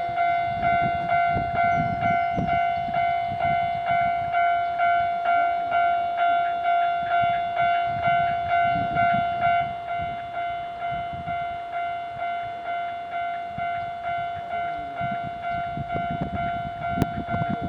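Japanese railway level-crossing warning bell ringing: a steady, repeating electronic ding at about 1.7 strokes a second, a little quieter from about ten seconds in. A low rumble runs underneath.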